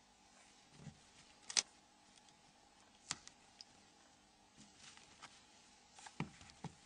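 Faint handling of a mobile phone and tools on a workbench: a few sharp clicks and taps, about four in all, with soft rustling between them.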